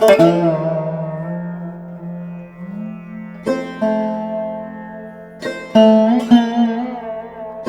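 Background music on a plucked string instrument like a sitar: sharply struck notes that ring and die away, with a held low drone.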